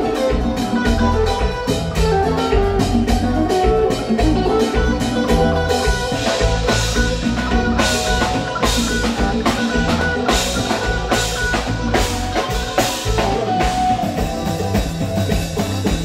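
A live band playing: drum kit, bass and electric guitar over a steady groove, with brighter cymbal strokes coming in about six seconds in.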